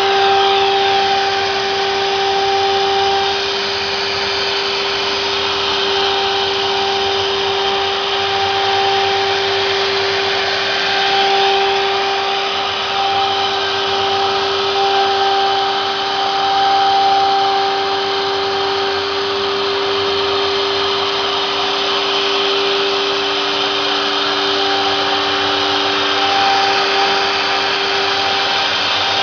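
CNC router running a cutting job, with a steady spindle whine over the even rush of the dust collector and the water-filled vacuum pump. A higher tone in the whine fades in and out at times.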